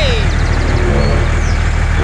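Steady low engine drone of a small vehicle, with a pitched tone gliding downward and fading out right at the start.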